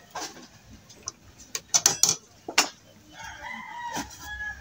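Sharp clanks and knocks of an aluminium rice pot being handled and emptied. About three seconds in, a rooster crows in the background, one call that rises and falls.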